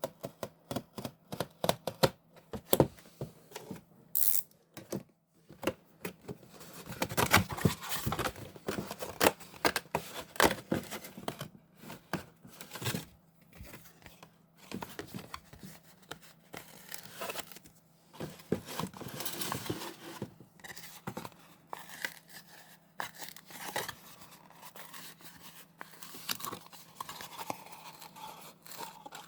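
A plastic snack packet of Golaebab crackers being torn and crinkled, after a quick run of sharp clicks in the first few seconds.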